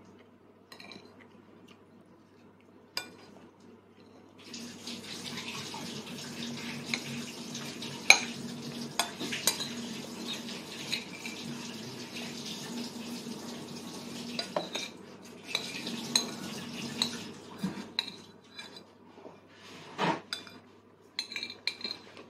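A metal spoon and fork clinking and scraping on a child's bowls, in scattered sharp clinks. From about four seconds in to about seventeen seconds a steady hiss with a low hum runs underneath.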